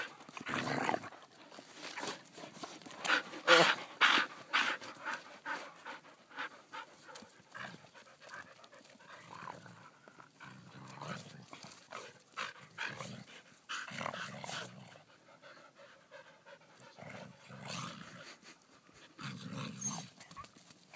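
A dog panting in irregular bursts with short gaps.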